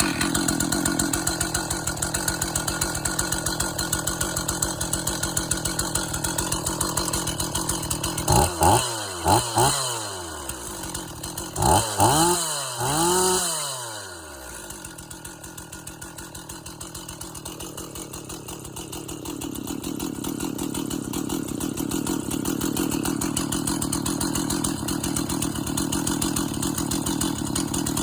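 Rebuilt Stihl 044 two-stroke chainsaw idling, blipped to high revs in two short bursts of quick rises and falls midway, then dropping back to a steady idle.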